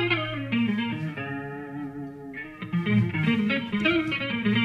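Instrumental guitar music: a plucked melody of short notes, with some notes bending and sliding in pitch.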